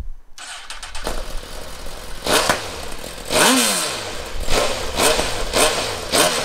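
2017 Suzuki GSX-R1000's inline-four engine, fitted with Lextech headers and link pipe and the stock muffler, starting up about a third of a second in. It is then revved in about seven quick throttle blips, the biggest around the middle, its pitch falling back toward idle after each.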